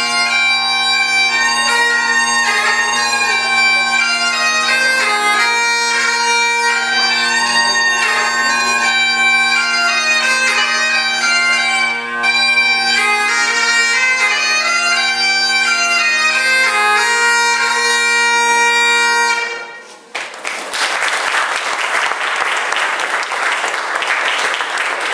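Highland bagpipes playing a tune on the chanter over steady drones, stopping about nineteen seconds in. The pipes are followed by audience applause.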